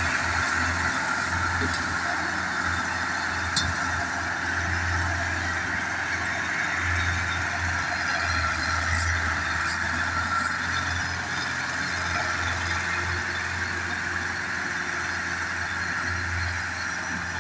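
Diesel tractor engines running hard under load, hauling a heavily loaded sugarcane trailer across a harvested field. The deep engine note rises and falls a few times.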